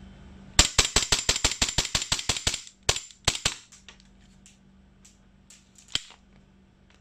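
VFC Sig Sauer M17 gas blowback airsoft pistol firing a rapid string of about fifteen shots in two seconds, then three slower shots, each a sharp crack of the gas and the slide cycling. The firing then stops as the pistol jams, followed by a few light clicks of the gun being handled.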